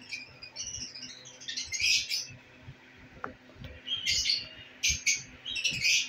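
Caged lovebirds chirping in quick, shrill bursts of short high calls, loudest about two seconds in and again in the last second.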